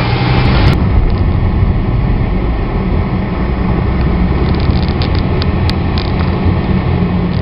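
Car driving on a rain-soaked road, heard from inside the cabin: a steady low rumble of engine and tyres with wet road noise. About a second in, a louder hiss cuts off abruptly, and a few light clicks come near the middle.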